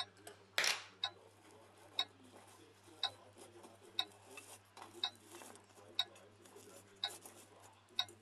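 A clock ticking steadily, about one tick a second. Just under a second in there is a brief rustle of the watch case being handled, the loudest sound.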